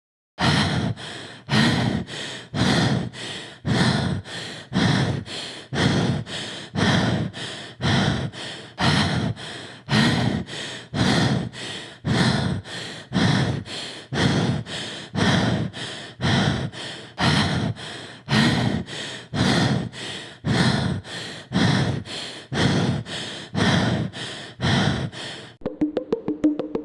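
A woman's short gasps, repeated over and over at a steady pace of about three every two seconds, each a sharp breathy intake that trails off. Near the end the gasps stop and a quick ticking musical jingle begins.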